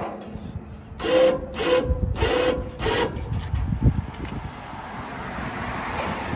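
Tie-down strap tightened by hand: four quick pulls of nylon webbing through its buckle, about one every half second. Then a single low thump.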